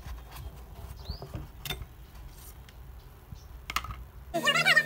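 Occasional light clicks and taps from hand work on a diesel engine's crank pulley, drive belt and alternator, over a steady low rumble. Near the end it cuts abruptly to a louder, wavering pitched sound.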